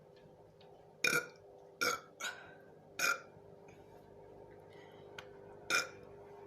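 A woman burping: four short burps in quick succession, then a fifth after a pause of a couple of seconds.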